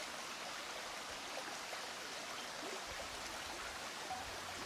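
Faint, steady rushing of a small stream.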